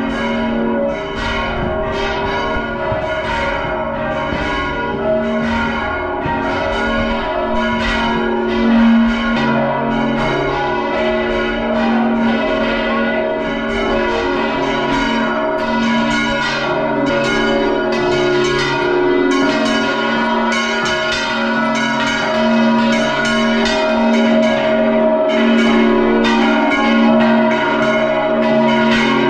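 Large bronze church bells of a basilica bell tower ringing a loud peal heard up close in the belfry: many strokes in quick, uneven succession, each bell's tones overlapping and humming on under the next strikes.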